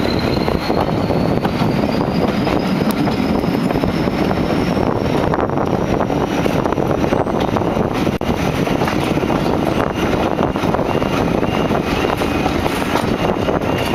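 English Electric Class 40 diesel locomotive accelerating a passenger train, heard from a coach window: its 16-cylinder engine's steady rumble with the high turbocharger whistle rising slowly in pitch, over wheel and wind noise. Near the end a faint two-tone level crossing alarm begins.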